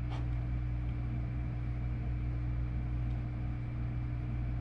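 Steady low hum with a faint, constant high whine, the background noise of the room or of a running machine such as a fan, with one faint click right at the start.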